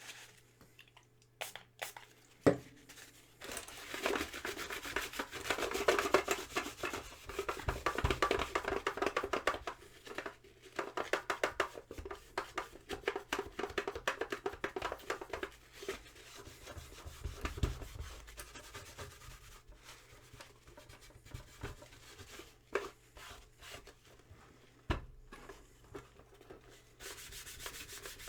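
Hands working on a cassette tape deck's plastic casing and small parts: rubbing and dense small clicks, with a sharp knock a couple of seconds in and another near the end.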